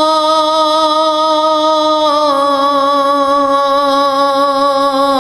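A man's solo voice, amplified through a microphone, holds one long sustained note of a devotional elegy chant (noha). The pitch steps down slightly about two seconds in, then holds steady.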